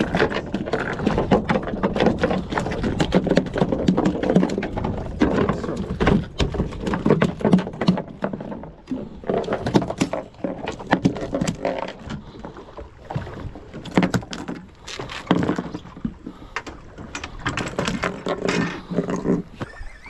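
Boat-deck noise: many sharp knocks and clicks over a low steady hum, as a jigging reel is handled and wound, busiest in the first half and thinning out toward the end.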